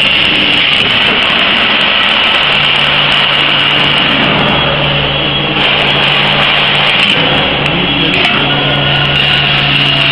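Corn-filling machine running steadily: a loud continuous whir and hiss over a low motor hum.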